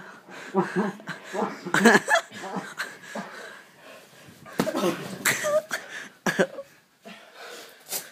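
Children's voices laughing, grunting and shouting without clear words while play-wrestling on a bed, with a few sharp knocks among them.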